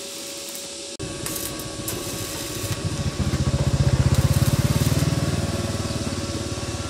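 A small engine running with a fast, even pulse, starting about a second in, growing louder about three seconds in, then slowly easing off.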